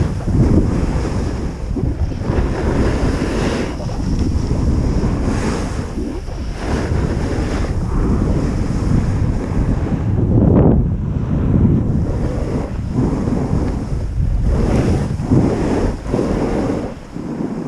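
Wind buffeting an action camera's microphone during a fast downhill run on snow, with the hiss and scrape of edges on packed, groomed snow surging with each turn.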